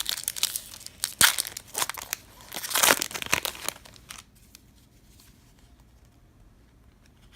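Crinkling and tearing of a baseball-card pack wrapper as it is opened and crumpled, with a few sharp crackles; it stops about four seconds in.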